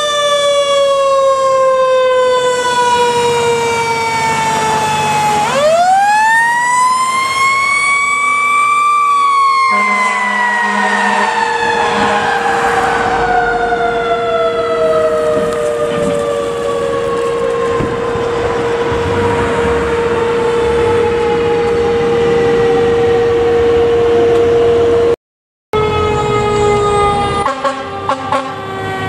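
Fire engine siren winding down, then winding up sharply about five seconds in and coasting slowly down in pitch over the next fifteen seconds, with a steady tone underneath. After a sudden cut near the end, another fire engine's siren is heard, falling in pitch.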